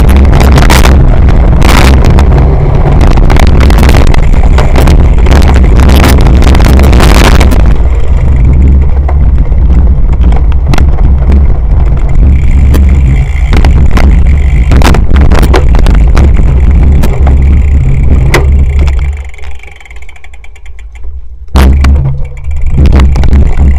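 Heavy wind buffeting and rumble on a camera microphone riding on a cyclocross bike at speed over a dirt course, with frequent knocks and rattles from the bike over rough ground. The noise drops away for about two seconds near the end, then comes back.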